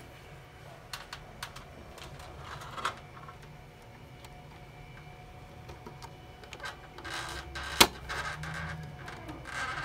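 Small clicks and plastic-on-metal handling noises as the mini-split's plastic room-temperature sensor clip is worked against the unit's sheet-metal panel, with one sharp loud click about eight seconds in as the clip snaps into the panel.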